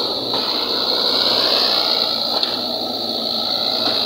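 Mahindra tractor's diesel engine running steadily under load as it pulls a trolley over soft sand, with a steady high-pitched hiss over it.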